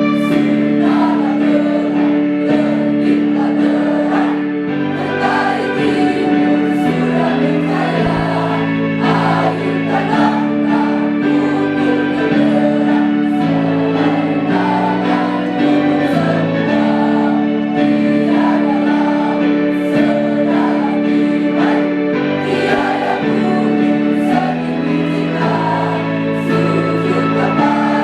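Student choir singing in unison with an electronic keyboard accompaniment holding sustained chords that change every second or two.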